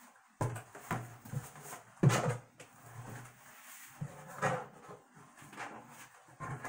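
Knocks and rubbing from a large black cylindrical container being handled and turned over, with the sharpest knock about two seconds in.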